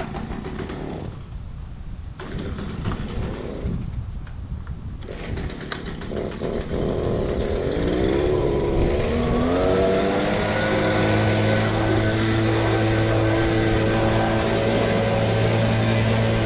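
Gas leaf blower's small engine running unevenly at first, then revving up about eight seconds in and holding a steady high speed.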